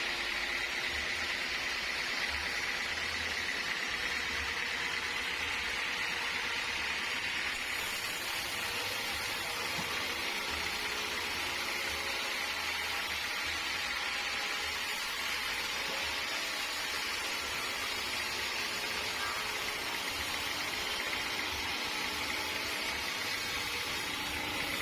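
Sawmill machinery running steadily: a constant hiss with a faint hum underneath and no cutting strokes.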